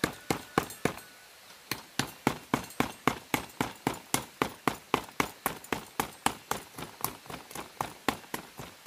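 Rapid, even series of sharp chopping or striking knocks, about three to four a second, with a brief pause about a second in before they carry on steadily.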